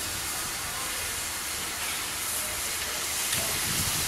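Steam hissing steadily from the standing K160, a Victorian Railways K-class 2-8-0 steam locomotive.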